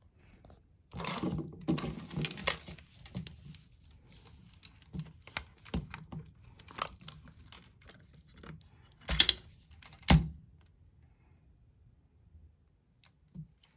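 Handling of a Sears KSX Super 35mm SLR camera body. There is rustling and a run of small mechanical clicks, then two sharp clacks about nine and ten seconds in as the rewind knob is pulled up and the film back is unlatched and swung open.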